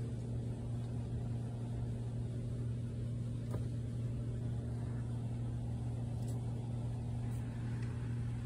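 Steady low hum over a faint, even rumble, with a few faint ticks.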